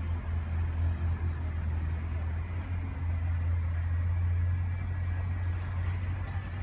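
Class 37 diesel locomotive's English Electric V12 engine working under light power as it approaches, a steady low drone.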